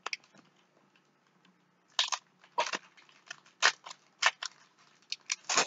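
Foil wrapper of a Topps Chrome card pack crinkling and tearing as it is opened by hand: a series of short crackles, loudest near the end.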